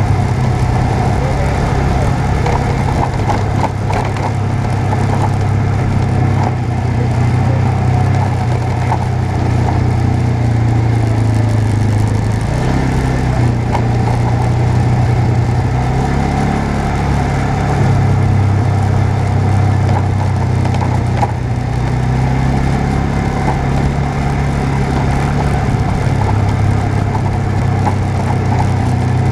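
Off-road vehicle's engine running steadily at low speed, its pitch rising and falling a little.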